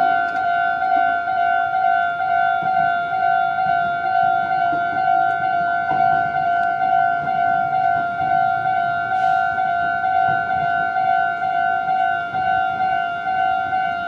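Japanese electronic railway level-crossing bell ringing: one steady pitched ding repeated evenly at about two strikes a second, the warning that the crossing is closed for an approaching train.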